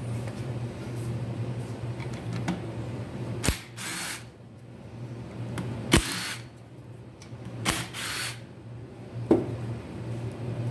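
Cordless drill with a socket running in three short bursts, backing out the sump cover bolts on a Briggs & Stratton 19 HP engine, with four sharp metallic knocks as the socket goes on and comes off. A steady low hum runs underneath.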